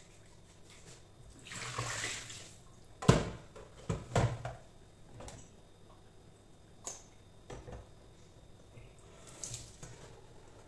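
Washing up by hand at a stainless-steel sink: a tap runs briefly, then a metal cooking pot clanks down into the sink with a loud knock and two more knocks. Small clicks and sponge scrubbing on the pot follow.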